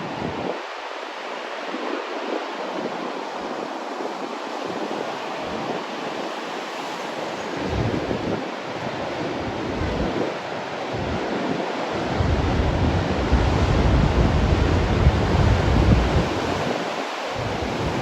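Large ocean waves breaking, a steady wash of surf. Wind buffets the microphone in gusts, heaviest in the second half.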